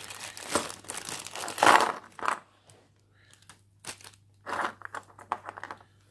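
Plastic bag of metal miniatures crinkling as it is handled and emptied, loudest just under two seconds in. After a short lull come a few brief crinkles and clicks.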